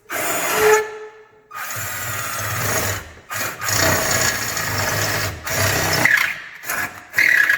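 Power drill boring small pilot holes through a car's steel frame rail, in several runs of a second or two with short pauses between.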